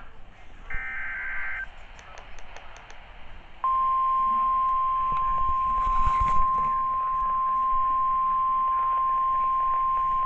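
NOAA Weather Radio alert broadcast: a short screeching burst of SAME digital header tones, then, about three and a half seconds in, the steady 1050 Hz warning alarm tone comes on and holds. The alarm tone announces an incoming severe thunderstorm warning.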